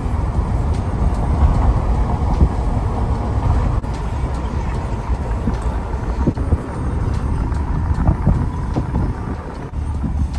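Road noise of a car on the move: a steady low rumble with irregular low thumps.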